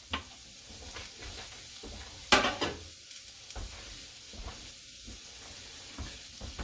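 Wild-game backstrap sizzling steadily as it sears in a very hot stainless steel frying pan, with a brief louder clatter about two and a half seconds in.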